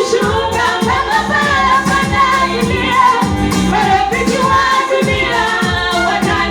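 A school choir singing a church song over instrumental backing with a regular beat.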